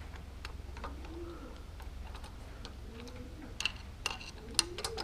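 Pigeons cooing, a soft rising-and-falling call repeated about every second or two. Scattered light metallic clicks and taps from a screwdriver and small carburetor parts being handled, a little louder in the second half.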